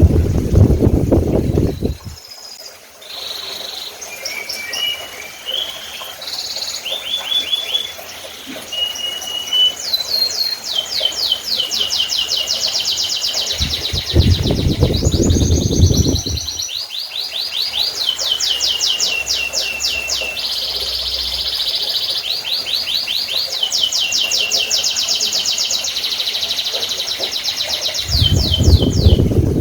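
Domestic canary singing a long, varied song of chirps and fast rolling trills. The song is broken three times by a couple of seconds of louder low rushing noise.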